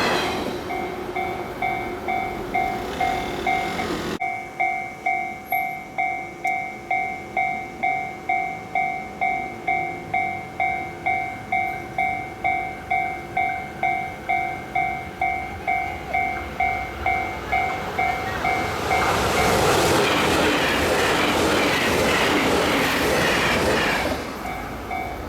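Japanese level-crossing warning bell ringing about twice a second. A train passes over the crossing for about five seconds near the end, its running noise drowning out the bell, which then carries on ringing.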